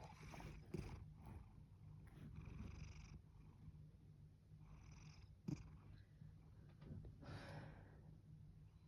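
Domestic cat purring, a steady low rumble, with soft breathy rushes every two to three seconds and a brief sharp tap about five and a half seconds in.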